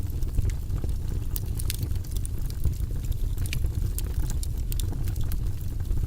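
Fire in a fireplace crackling, with frequent sharp pops and snaps over a steady low rumble of the flames.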